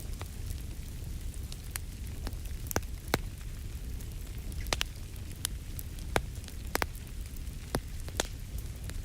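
Wood fire crackling in a fireplace: a steady low rumble of flames with irregular sharp pops and snaps, a dozen or so, the loudest about three seconds in.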